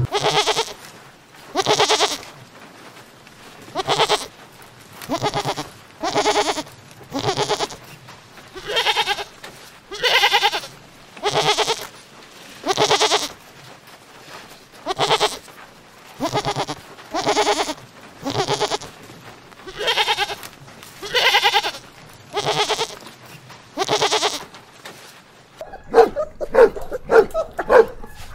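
Goats bleating over and over, a long run of separate calls about one every second or so. Near the end the bleating stops and dogs start barking.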